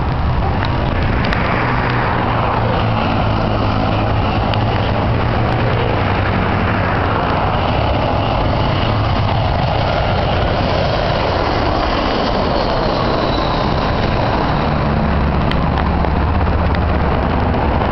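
Jet airliner passing low on its landing approach, its engines giving a loud, steady noise with a slow sweeping change in tone as it goes by.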